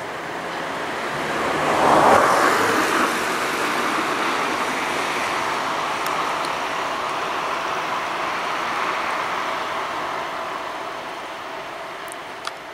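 A passing vehicle. It swells to its loudest about two seconds in, then slowly fades over the next ten seconds. There is a short sharp click near the end.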